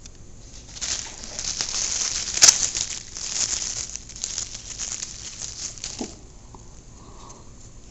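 Crinkling and rustling of plastic packaging being handled, with a sharp snap about two and a half seconds in; it stops about six seconds in.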